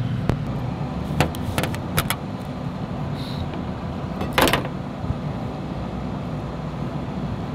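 Scattered clicks and knocks of gear being shifted around in the back of a pickup truck, with one longer, louder rattle about four and a half seconds in, over a steady low hum.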